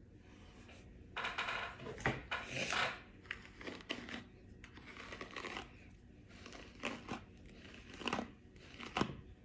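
Rustling and crinkling handling noise, densest for a couple of seconds near the start, then a few short rustles and sharp clicks.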